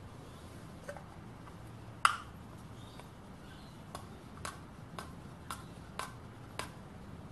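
Small metal oil cup clicking against a thin plastic jar lid as it is fitted and twisted into the lid's drilled hole: one sharp click about two seconds in, then lighter clicks about two a second.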